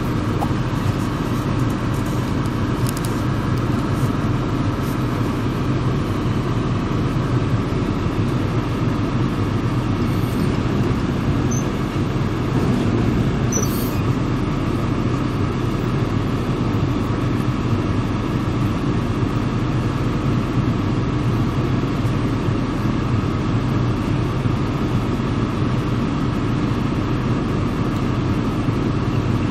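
Diesel multiple unit idling while standing still, heard from inside the passenger compartment: a steady, even low engine hum that does not change.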